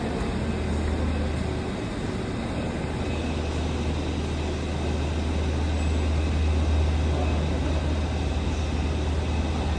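A steady low mechanical hum under an even rumble, unchanging throughout.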